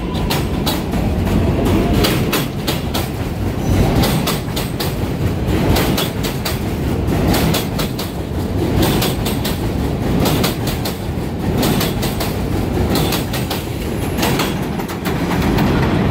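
A New York City Subway 4 train of R142 cars pulls out along an elevated steel structure with a continuous heavy rumble. Its wheels clatter over the rail joints in a rapid run of sharp clicks.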